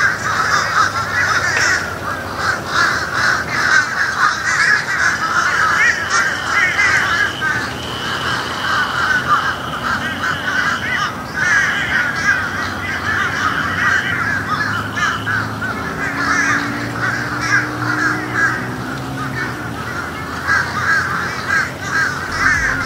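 A large flock of birds calling all at once, a dense and continuous din of chattering calls that the birds keep up the whole time: the birds are going crazy.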